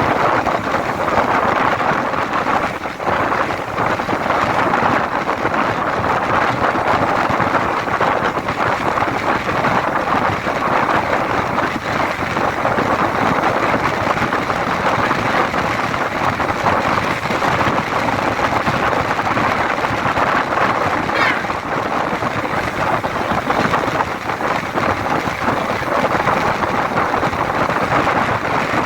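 Steady traffic and wind noise, an even roar without breaks or distinct events.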